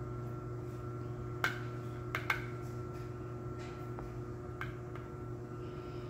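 Fingertips dabbing acrylic paint onto a stretched canvas: a handful of sharp taps, two in quick succession about two seconds in, over a steady background hum.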